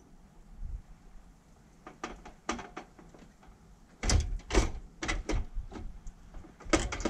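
Hard parts knocking and clattering as a radiator and its mounting hardware are handled in a pickup's front radiator support: scattered knocks, a few with a faint metallic ring, busiest in the second half.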